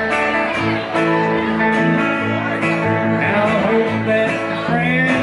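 Live country band playing: electric guitar and acoustic guitar over an upright bass plucking a bass line that steps to a new note about every half second.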